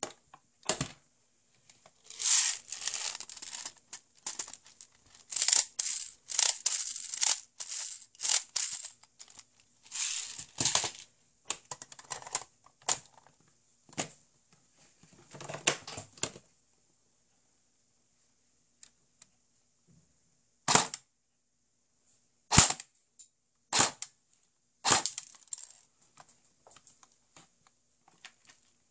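Airsoft electric gun cycling in short bursts of rapid mechanical clatter, then a few single sharp clacks about three quarters of the way through: an operation check of its electric bolt stop after a sensor replacement.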